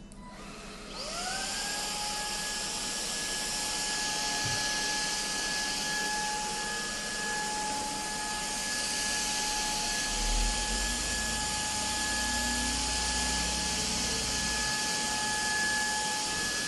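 Cordless stick vacuum's motor spinning up about a second in with a rising whine, then running steadily with a high, even whine over a rush of airflow.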